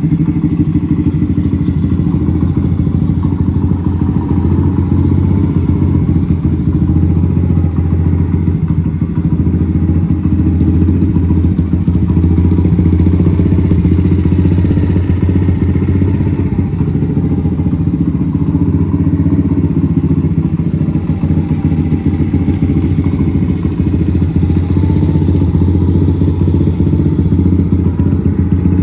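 Honda Gorilla AB27's 49 cc four-stroke single-cylinder engine, fitted with an aftermarket full exhaust, running steadily at idle with an even, unchanging note.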